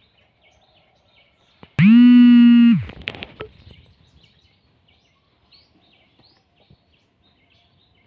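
A single loud horn-like blast about a second long, sliding up at its start, then holding one pitch before cutting off. Small birds chirp faintly throughout.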